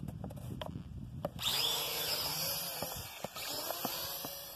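Toy quadcopter's four small electric motors and propellers spinning up with a sudden high whine about a second and a half in, the pitch wavering up and down as it lifts off and flies.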